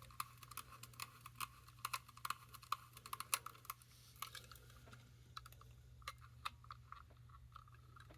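Light, irregular plastic clicks and taps as AA batteries are fitted into a 1998 Furby's battery compartment, thickest in the first four seconds and sparser after.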